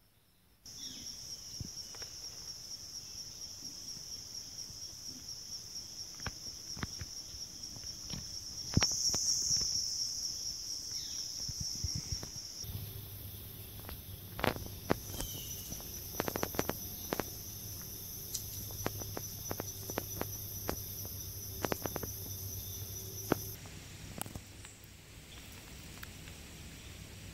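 A steady, high-pitched chorus of trilling insects, whose pitch and loudness change twice, with scattered clicks and rustles of footsteps in dry leaves and gravel. About nine seconds in, the insect sound briefly swells and is the loudest point.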